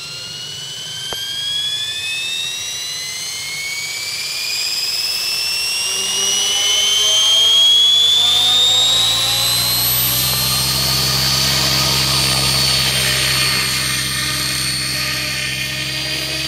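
Radio-controlled model helicopter spooling up: a high whine from its motor and gears climbs steadily for about ten seconds, then holds steady. Underneath, the low hum of the spinning main rotor blades builds from about six seconds in.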